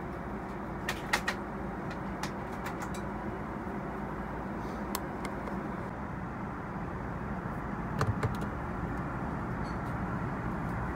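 Steady cabin noise inside an Airbus A380, with a few sharp clicks about a second in and again around eight seconds in as the seat's mirror compartment and storage bin lids are handled.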